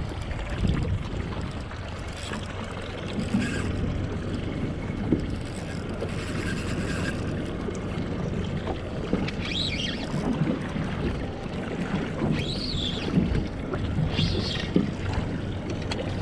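Sea wind buffeting the microphone and water washing against a small boat's hull, over a steady low motor hum, with a few short high squeaks in the middle and toward the end.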